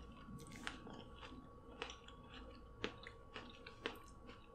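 Quiet, close-miked chewing of a mouthful of sauce-coated corn on the cob, with a few short wet mouth clicks about once a second.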